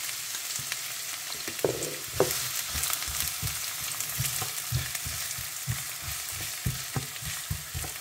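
Chopped onion sizzling in hot oil in a nonstick frying pan. From about a second and a half in, a spatula stirs it, scraping and knocking against the pan, with two sharper knocks just after that.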